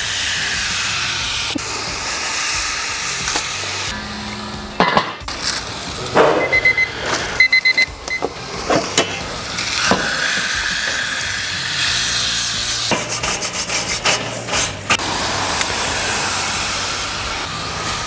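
Ribeye steak sizzling on grill grates heated to about 580°F over charcoal, a loud steady hiss. In the middle, a metal spatula scrapes and clicks against the grates as the steak is flipped.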